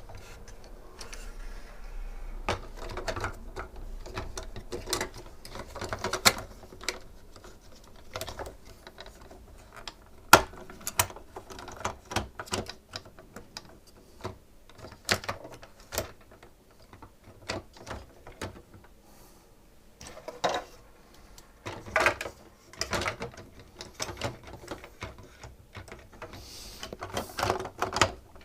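Irregular clicks, taps and short rattles of SodaStream parts being handled and fitted by hand, with a few brief scraping stretches about two-thirds of the way through and near the end.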